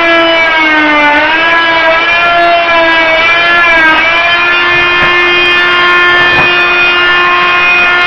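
Hyper Tough corded oscillating multi-tool with a scraper blade running under load while it scrapes linoleum off a wooden subfloor: a loud, steady high buzz whose pitch sags twice, about a second in and again near four seconds, as the blade is pressed into the work. A couple of sharp clicks come later on, about five and six seconds in.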